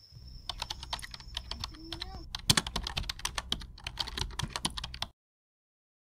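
Steady high-pitched trill of insects (kuliglig), stopping about two seconds in, under a rapid irregular run of sharp clicks and a low rumble. All of it cuts off suddenly about five seconds in.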